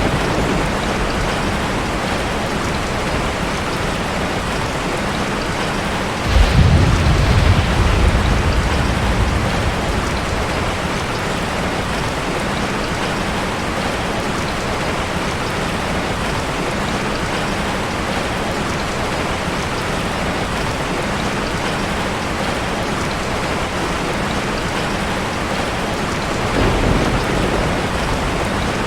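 Steady rain falling, with a sudden low rumble of thunder about six seconds in that fades over a few seconds, and a fainter rumble near the end.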